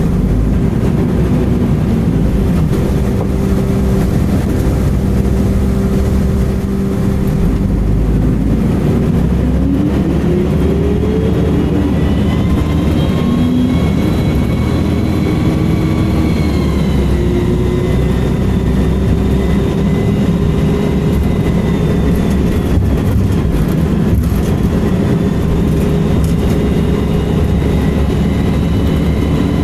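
Volvo B10M bus's mid-mounted six-cylinder diesel running under way, its revs rising about a third of the way in. A thin, high-pitched screech comes in at the same point, dips in pitch around the middle and carries on over the engine.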